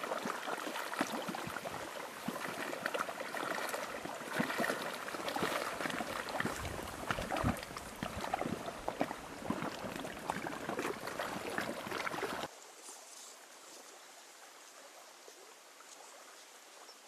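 River water lapping and trickling, a hissing noise full of small splashes, that cuts off suddenly about twelve seconds in and leaves a faint steady hiss.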